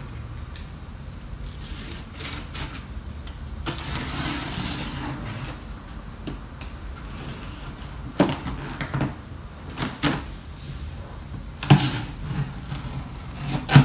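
Cardboard shipping box being opened: a scraping cut along the packing tape about four seconds in, then several thumps and rustles as the cardboard flaps are pulled open.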